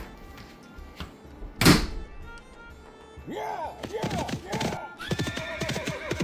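A single loud thunk, then a horse whinnying in several arching calls and hooves clip-clopping, like a carriage horse setting off, over background music.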